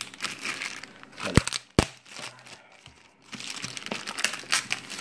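Clear plastic bag crinkling as it is handled and pulled open, with a quieter lull midway. There are two sharp clicks about one and a half seconds in.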